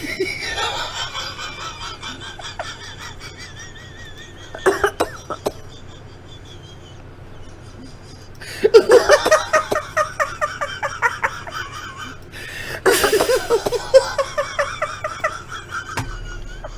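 A person coughing and laughing in fits: a short burst about five seconds in, then two longer bouts of rapid pulses starting about eight and thirteen seconds in.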